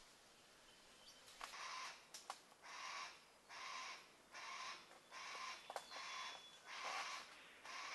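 Yellow-tailed black cockatoos giving a run of harsh, rasping calls, about one a second, starting a second or so in, with a few sharp cracks of rotten wood being ripped open between them.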